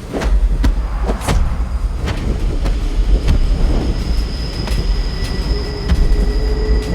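Train running close by: a heavy low rumble with repeated sharp clacks and knocks, joined from about three seconds in by a thin, steady high-pitched squeal.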